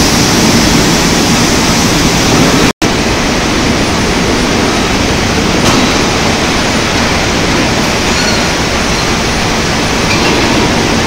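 Steady, loud, rushing industrial noise at the run-out of a continuous steel billet caster, with no distinct knocks or tones. The sound cuts out for an instant about three seconds in.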